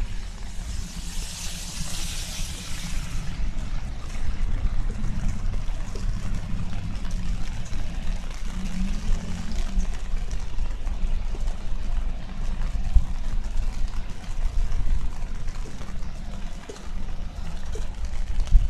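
Wind buffeting a handheld microphone: a low, uneven rumble. A brief hiss sits over it in the first few seconds.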